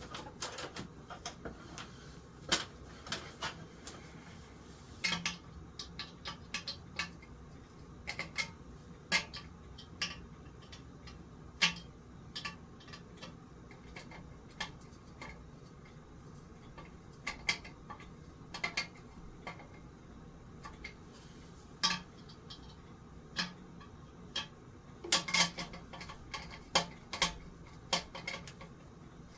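Small metal parts and tools clinking and clicking irregularly as a ceiling fan is worked on by hand, with a few quick clusters of clinks.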